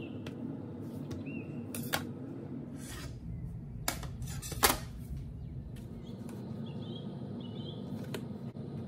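A few sharp knocks and clicks on a wooden cutting board, the loudest about four and a half seconds in, over a steady low hum. Faint bird chirps repeat from about two-thirds of the way through.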